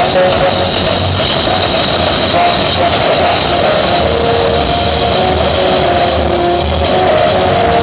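Loud music blasting from a truck-mounted "Strom" sound system built from stacked speaker cabinets, with shifting melody notes over a pulsing bass beat.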